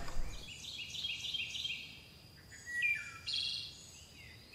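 Birds singing: a run of quick, falling chirps, then brighter, louder calls about three seconds in.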